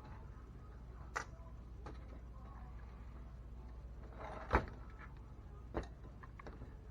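Three short clicks and knocks of small RC-truck suspension parts being handled and fitted, the loudest about four and a half seconds in, over a low steady hum.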